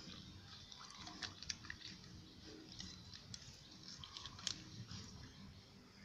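Dog chewing and gnawing on a scrap of clear plastic noodle wrapper, giving faint, irregular crinkles and clicks, with one sharper crackle about four and a half seconds in.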